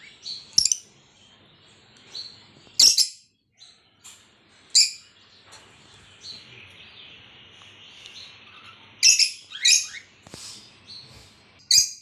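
Peach-faced lovebirds giving short, sharp, high chirps, about six scattered calls with two in quick succession about nine seconds in.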